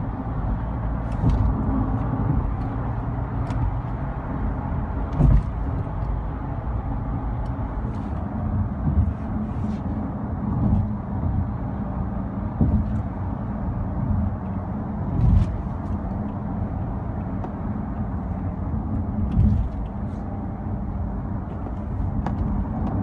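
Steady road and engine noise of a car cruising on a highway, heard from inside the cabin, with a few louder thumps, most clearly about five, fifteen and nineteen seconds in.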